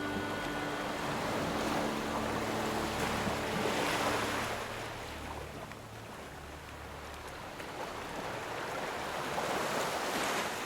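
Ocean surf: waves washing in and drawing back as a steady rushing, swelling about four seconds in and again near the end. A held music note fades out during the first few seconds.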